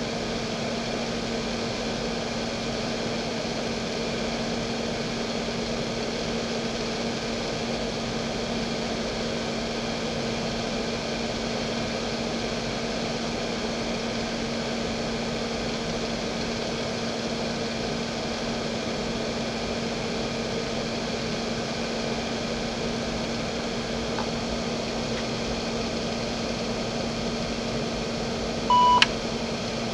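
Steady hum of a running vintage PC with its 1992 JVC JDE2042M10-1 2.5-inch hard drive spinning. Near the end comes one short beep from the computer, followed by a click.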